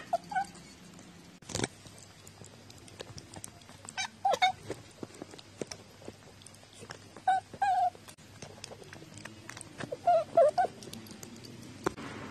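A cat eating from a small dish, giving short mews about every three seconds between many small clicking licking and chewing sounds. There is a single knock about a second and a half in.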